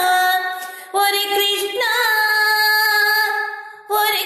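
Woman singing a Telugu devotional song to Krishna, drawing out long held notes with short breaths about a second in and near the end.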